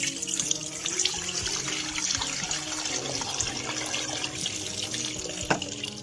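Dirty water pouring out of a Hoover Power Scrub carpet cleaner's recovery tank into a sink, splashing and gurgling steadily, with one sharp click about five and a half seconds in.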